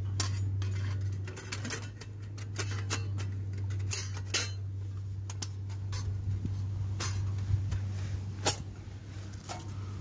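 Thin metal plates of a flat-pack Onetigris wood-burning stove clinking and scraping as they are slotted together: a scattered run of sharp clinks, the loudest about four seconds in and near the end, over a steady low hum.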